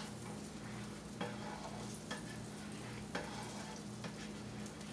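Butter and olive oil sizzling faintly on a hot griddle as a spatula moves them around, with four light clicks about a second apart, over a steady low hum.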